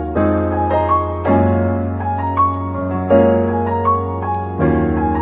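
Background music over the closing credits: piano or electric keyboard playing chords that change about every second, over a steady bass.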